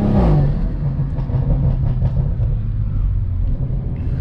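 2020 BMW M340i's turbocharged B58 inline-six, fitted with an aftermarket intake, lifting off the throttle after a pull. The engine pitch drops and a brief whooshing turbo flutter sounds at the start. The engine then runs on low and steady at light throttle.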